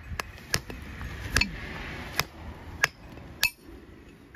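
About six sharp metal knocks, spaced roughly half a second to a second apart, the last with a short ring. This is a farrier's hammer tapping nails and a horseshoe on a donkey's hoof during shoeing.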